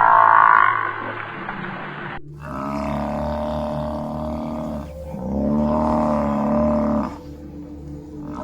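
A large animal calling: two long, drawn-out, steady-pitched calls of about two seconds each.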